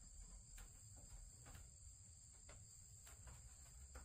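Faint, steady, high-pitched buzzing of insects, with a few scattered faint clicks.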